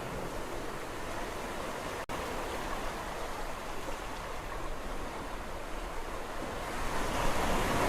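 Sea waves washing on a shore: a steady rushing surf, with a wave swelling louder near the end. About two seconds in, the sound drops out for a split second.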